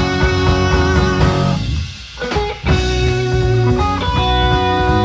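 Prog-rock band playing, led by electric guitar over bass, from a 1975 reel-to-reel recording. The music drops away briefly near the middle, then comes back in full.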